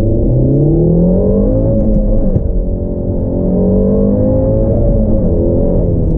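Peugeot 308 GTi's 1.6-litre turbo four-cylinder under hard acceleration, heard from inside the cabin. The revs climb, drop sharply at a gear change just over two seconds in, and climb again. Near the end they fall back as the throttle eases off.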